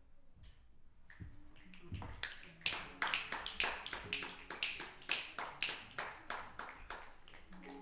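A small audience applauding: quick, separate hand claps, several a second, starting about a second and a half in and growing louder.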